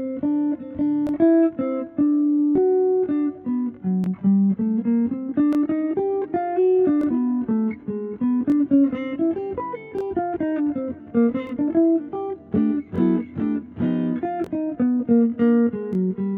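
Background music: plucked guitar playing a melody of quick notes.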